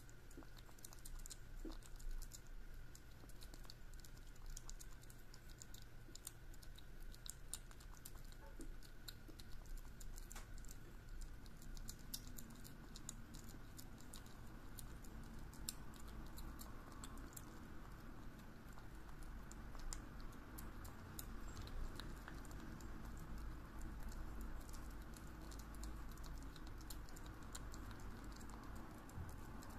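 British shorthair kitten eating pâté-style wet cat food from a glass dish: a fast, irregular stream of small wet clicks and smacks from its licking and chewing, over a faint low hum.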